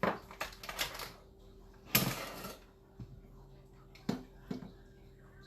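A utensil clattering and scraping against cookware while shredded chicken is scooped out. There is a run of light clicks in the first second, a louder scrape about two seconds in, and two sharp knocks a little after four seconds.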